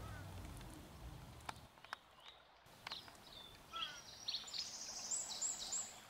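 Songbirds calling: scattered short chirps and a couple of quick falling notes, then a run of high, rapid repeated notes in the last second and a half, over a low background rumble that stops about two seconds in.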